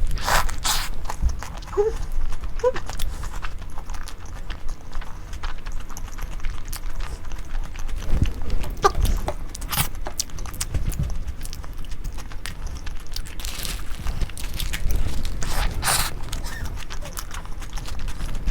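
A person eating close to the microphone: irregular chewing and crunching with many short sharp clicks.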